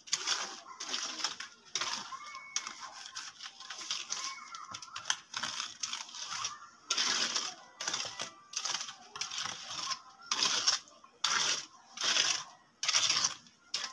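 Mason's trowel scraping across the wet concrete of a freshly cast slab roof as it is smoothed, in repeated rasping strokes, one or two a second.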